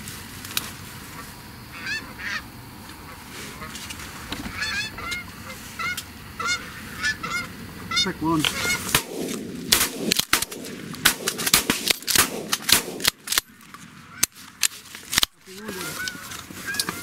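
A flock of Canada geese honking as they come in low over the decoys, then a volley of shotgun shots from several hunters firing in quick succession for about six seconds, starting about nine seconds in. The geese keep calling through and after the shooting.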